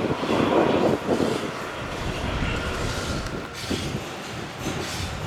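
Jet airliner engines running: a steady rumbling noise without clear tones, loudest in the first second and easing a little after.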